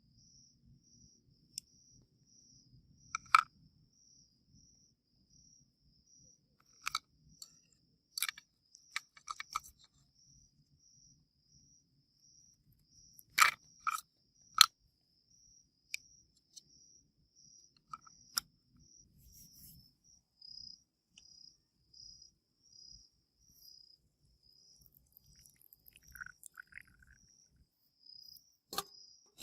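A cricket chirping in a steady, even pulse, a little over one chirp a second, with scattered sharp clicks and knocks, the loudest of them clustered around the middle.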